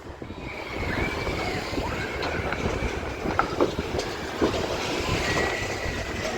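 Heavy city street traffic: a large vehicle passing, its rumble building over the first second, with thin high-pitched squeals coming and going.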